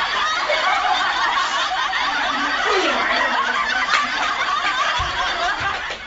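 Many people laughing and chuckling without a break, a dense wash of laughter that drops away near the end.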